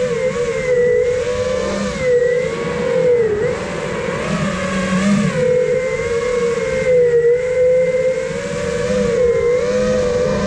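iFlight Nazgul Evoque F5 five-inch FPV quadcopter's motors and propellers whining, the pitch wavering up and down as the throttle changes through low, twisting flight.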